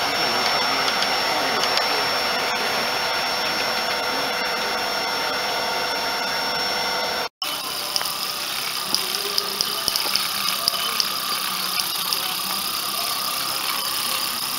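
A motor running steadily with a high whine over a hum. After an abrupt cut, a steady hiss with scattered light clicks, in keeping with a small live-steam garden-railway locomotive running along its track.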